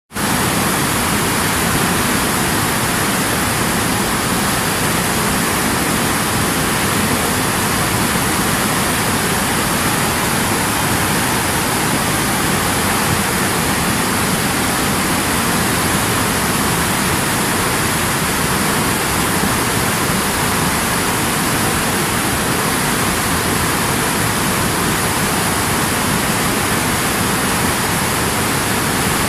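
Fast whitewater mountain river rushing over rocks: a steady, even, full-range noise of churning water.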